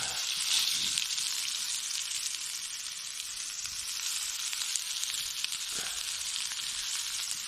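Ribeye steak sizzling steadily as it fries over a campfire.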